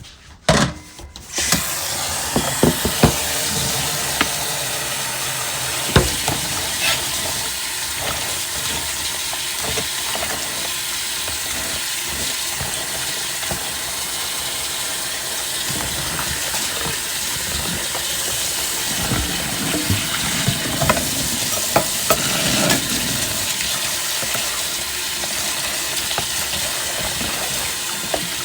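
Kitchen tap running steadily into a sink while dishes are washed, with scattered clinks and clatters of dishes. The water comes on about a second in.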